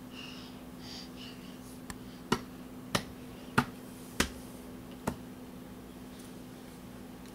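A baby's hand slapping a hard surface five times in a row, about once every two-thirds of a second.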